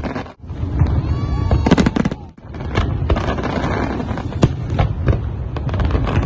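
Aerial fireworks display: a fast run of sharp bangs and booms over a continuous low rumble and crackle, broken by two short dips in the first few seconds.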